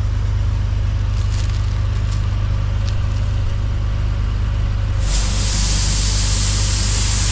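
A tractor engine running steadily while the load is tipped. About five seconds in, a loud, even hiss starts suddenly: shelled corn beginning to pour out of the tipping trailer.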